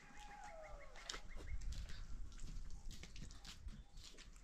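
A short animal call falling in pitch about a second long near the start, with scattered small clicks and knocks.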